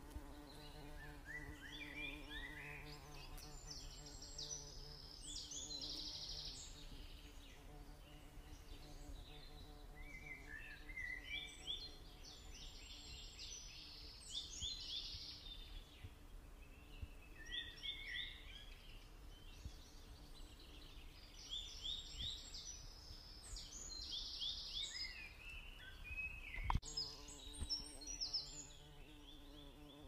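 Outdoor nature ambience: a bird sings long phrases of quick chirping notes that repeat about every ten seconds, over a low steady buzz. A single sharp click sounds near the end.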